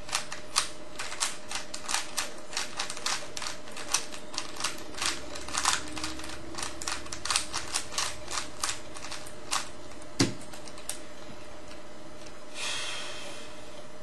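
Speedcube (3x3 Rubik's Cube with Cubesmith stickers) being turned fast by hand: a rapid, uneven run of plastic clicks from the layer turns, stopping after about ten seconds with one sharper knock. A short rustle follows about two seconds later.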